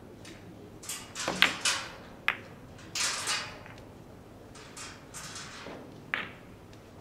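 Carom billiard balls in play after a stroke: a series of sharp clacks and duller knocks as the balls strike each other and the cushions, the loudest about one and a half seconds in and a last sharp clack near the end.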